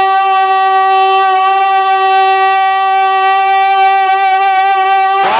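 A man's singing voice holding one long, steady note of a naat through a PA microphone for about five seconds, then breaking off near the end.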